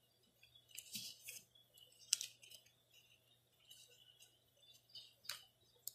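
Sheet of paper being folded and creased by hand: faint, scattered rustles and crinkles, with short clusters about one, two and five seconds in.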